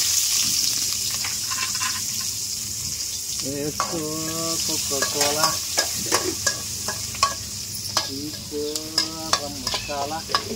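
Food sizzling in hot oil in a cooking pan as it is stirred, the spoon clicking and scraping against the pan again and again. Twice a pitched, voice-like sound rises over the sizzle.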